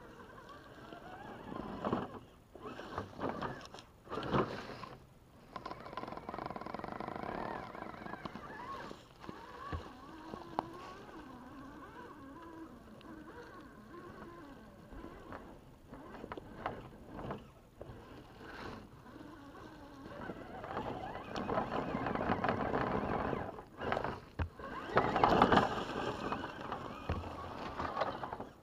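Scale RC crawler truck's electric motor and gearbox whining, the pitch rising and falling with the throttle, as it climbs over a log, with scrapes and knocks from the tyres and chassis on wood and leaf litter.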